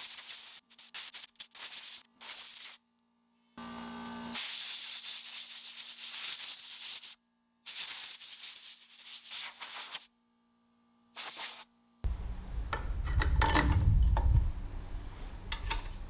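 Compressed-air blow gun blasting out an engine air filter in bursts of hiss: quick short blasts at first, then longer blasts of a few seconds each with pauses between. About three-quarters of the way through, the hiss gives way to a louder low rumble with clicks and knocks.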